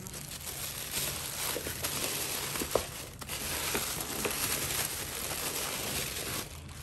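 Paper crinkling and rustling steadily as a present is unwrapped, with a few sharper crackles mixed in.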